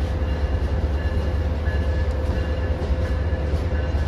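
Amtrak passenger train's stainless-steel coaches rolling past along the platform: a steady low rumble of wheels on rail with a constant hum, and faint high squeals coming and going.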